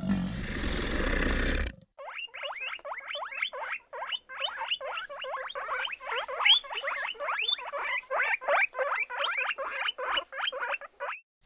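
A loud rushing noise for under two seconds, then guinea pigs squeaking in a long, fast run of short rising calls, about four a second.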